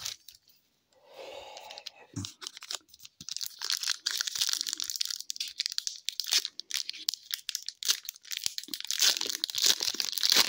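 Foil wrapper of a hockey card pack being torn open and crinkled by hand: a dense, high crackle that starts about three seconds in and goes on for several seconds.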